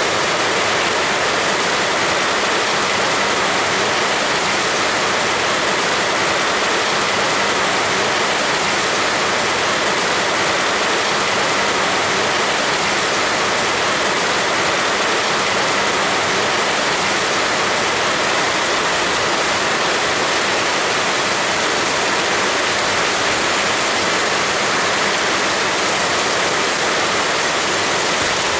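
Heavy rain pouring down, a dense, steady hiss with no letup.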